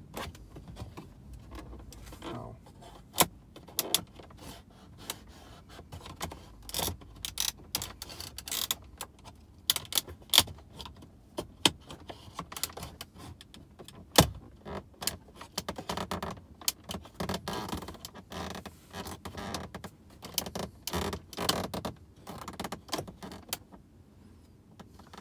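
Plastic dashboard trim and hand tools being worked around a Ford Focus's center console. Irregular clicks, taps, scrapes and metallic clinks, with a sharp knock about fourteen seconds in.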